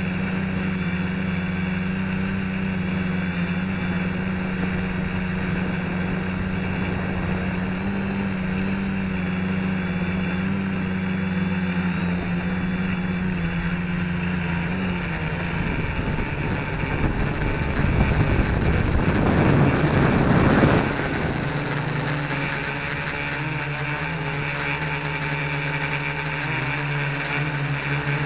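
Home-built quadcopter's motors and propellers droning steadily in flight, heard from a camera slung right under the airframe. The pitch dips slightly past the middle, then a louder rushing noise swells for a few seconds and cuts off suddenly.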